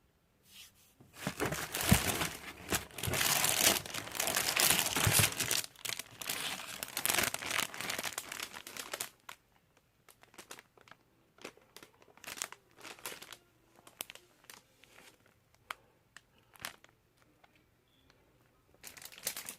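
Packaging crinkling as it is handled during an unboxing: a long stretch of dense crinkling and rustling, then scattered light crinkles and clicks, and another burst of crinkling near the end.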